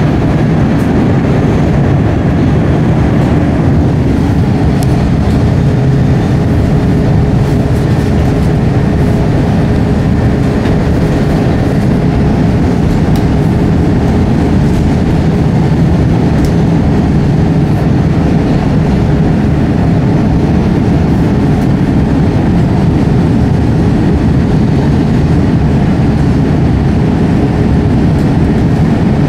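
Chicago 'L' Blue Line rapid-transit car running on the elevated structure, heard from inside the car: a loud, steady rumble of wheels on rail. A thin steady whine joins about five seconds in and holds.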